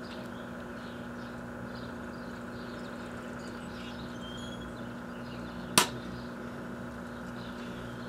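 1984 Kenmore microwave oven running with a steady hum. A single sharp crack comes a little before six seconds in, and birds chirp faintly.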